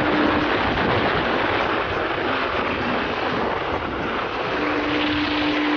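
Wind rushing over the phone microphone on a Yamaha R15 motorcycle ridden at road speed: a steady, loud roar of noise. A steady hum joins about four and a half seconds in.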